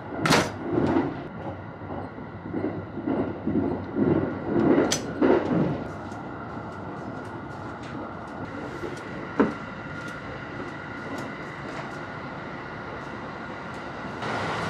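Steady running noise inside a moving 285 series Sunrise Seto sleeper train, with a constant whine throughout. A cluster of knocks and thuds in the first six seconds, and a single sharp click about nine seconds in.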